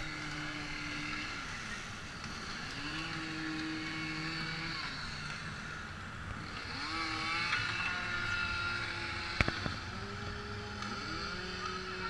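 Chainsaw sound effects revving up, holding and dropping off again about every three seconds, over the steady rush of water. There is a sharp knock about nine seconds in.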